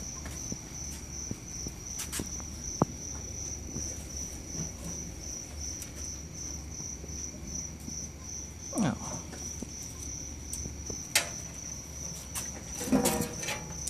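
Crickets chirping steadily in a high, evenly pulsing trill, with a few sharp clicks and knocks scattered through it, the loudest about three seconds in and a cluster near the end.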